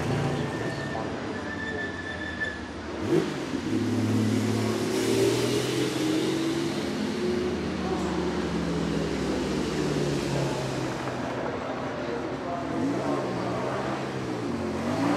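Porsche 961's 2.9-litre twin-turbo flat-six running as the race car drives, with a sharp bang about three seconds in. Near the end the engine is blipped, the revs rising and falling a couple of times.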